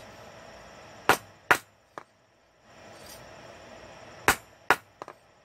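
Soft-face hammer striking a quarter-inch steel hairpin on the anvil to set its arch. Two sharp blows in quick succession with a lighter tap after, then after a pause another two blows and a couple of lighter taps.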